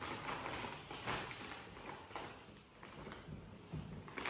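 A plastic packaging bag crinkling and rustling in irregular bursts as it is handled and held open.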